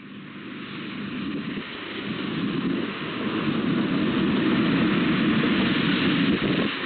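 Steady rushing outdoor noise that fades in over the first few seconds and then holds level.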